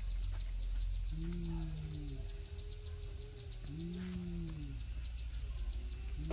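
An animal calling: low, drawn-out calls about a second each, rising and then falling in pitch, three times, over a steady low rumble.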